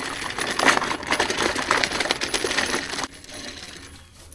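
Wheeled clay-target (skeet) thrower being pulled by its handle over rough ground, its metal frame and wheels rattling and clattering in a dense run of clicks. The clatter drops off sharply about three seconds in, leaving a faint rattle.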